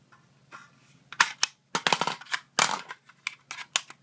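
Metal magazine clicking and clacking against an AR-15's magazine well as it is fitted in, a quick run of sharp clicks starting about a second in.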